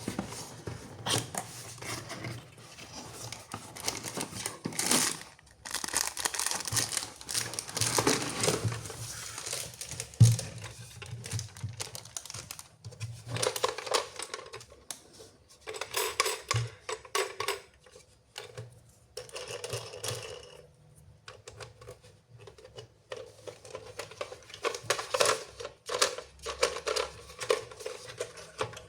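Plastic packaging crinkling and tearing as a toy is unwrapped by hand, in irregular rustling bursts with scattered clicks and taps.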